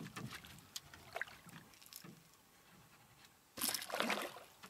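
A hooked Papuan black bass thrashing and splashing at the surface beside the boat, one loud splash about three and a half seconds in that lasts under a second.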